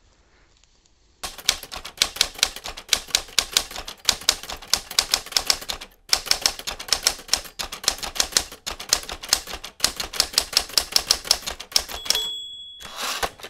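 Typewriter sound effect: rapid key strikes clattering several times a second, with a brief pause about halfway. Near the end a short high ding and a brief rasp, as of the carriage bell and return.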